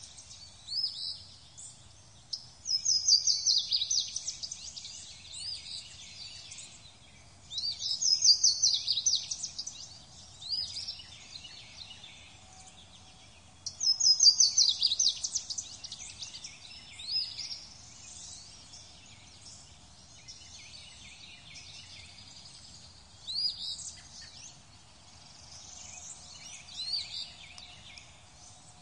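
Songbird singing: a loud, rapid trilled phrase repeated three times about five to six seconds apart, with quieter chirps and calls in between.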